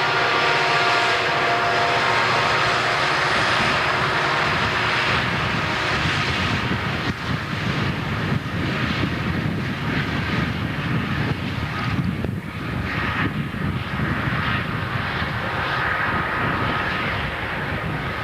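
EMD SD40-2 diesel locomotives working hard in notch 8 up a steep grade, their turbocharged 16-cylinder two-stroke engines running loud with a steady turbo whine. About six seconds in, the whine fades and a rougher, pulsing low rumble takes over.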